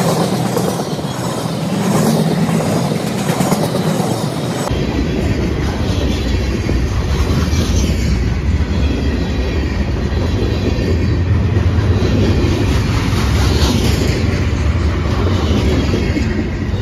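A long freight train of covered hoppers, tank cars and flatcars rolling past close by, its steel wheels running over the rails in a steady, continuous noise.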